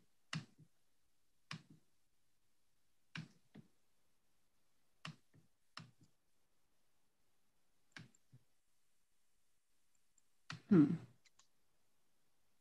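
Computer mouse clicks, about eight or nine short, irregular ones, as a stuck PowerPoint slide fails to advance. A louder, longer noise comes about ten and a half seconds in.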